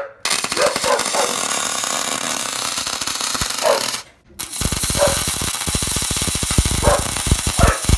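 Welding arc crackling and sputtering as two short beads are run, with a brief pause just after the midpoint between them.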